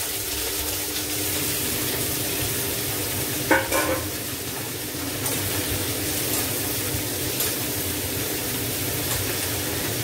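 Chopped vegetables sizzling and frying in hot tempered oil in a pan as they are stirred. There is a sharp metal clack about three and a half seconds in, with a smaller one just after.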